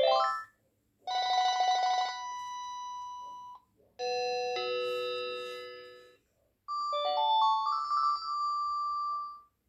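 Short electronic ringtone-like melodies played one after another, with dead silence between them: a quick rising run of notes, a trilling chord that trails into a held tone, a held two-note tone, then a rising run of stepped notes.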